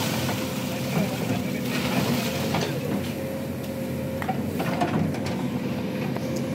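Excavator's diesel engine running steadily with a held whine, and scattered knocks and thuds as the bucket works and drops earth into the pit.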